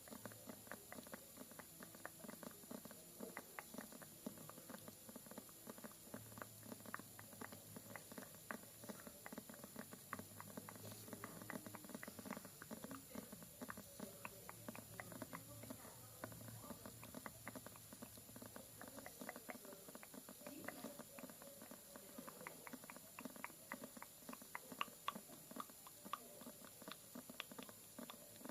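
Faint ASMR tapping: soft, quick taps and clicks, several a second, in an uneven run.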